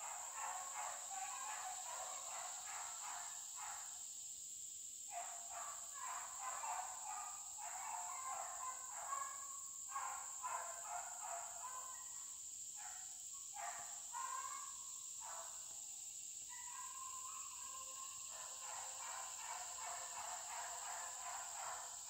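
A pack of beagles baying in the distance while running a rabbit, a rapid string of overlapping barks with a couple of short breaks. A steady high insect buzz runs underneath.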